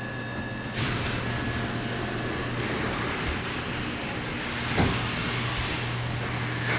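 Steady workshop background noise: a low hum under a broad rushing haze that thickens about a second in, with a single knock a little before five seconds in.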